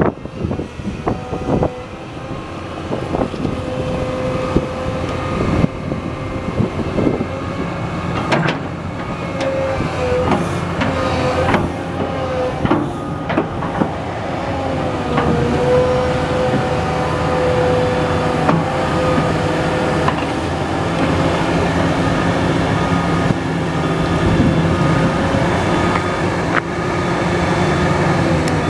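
A 2004 Komatsu PW200 wheeled excavator running steadily, with a whining tone that dips and recovers a few times and scattered clanks and knocks, most of them in the first half.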